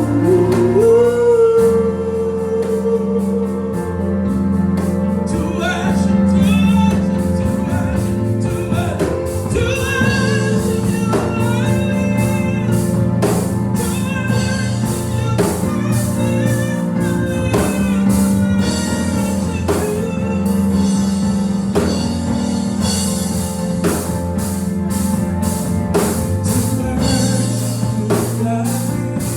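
Live gospel music: a drum kit keeps a steady beat under sustained keyboard chords, with voices singing over it.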